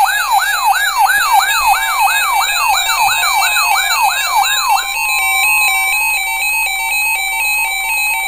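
Weather radio alert: an electronic siren wailing up and down about three times a second. About five seconds in it gives way to the steady NOAA Weather Radio alert tone near 1 kHz, with a pulsing pattern over it, signalling an incoming alert message.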